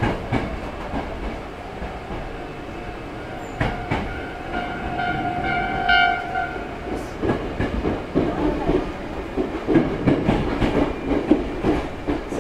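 Hankyu 6300 series electric train running, heard from inside the car, with steady running noise and knocks from the wheels over the track. A held pitched tone swells for about three seconds in the middle and stops, followed by irregular clattering over rail joints.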